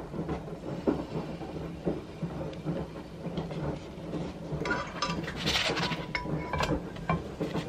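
Light clinks and taps of cooking at a non-stick frying pan as pancake batter is poured in from a shaker bottle, then a plastic spatula scraping against the pan as it slides under the pancake about five seconds in.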